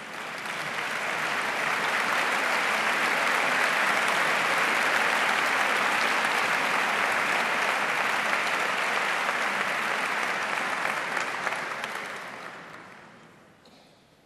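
Audience applauding as a performer is introduced: the clapping swells over the first couple of seconds, holds steady, then dies away over the last two seconds.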